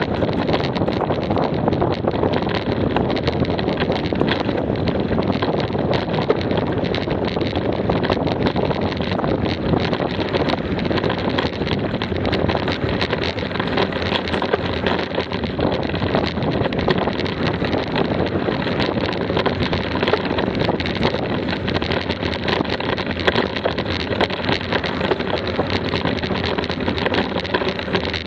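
Wind rushing over an action camera's microphone as a bicycle rolls along a gravel and dirt track, the tyres running on loose stones and the bike rattling with many small knocks over the rough ground.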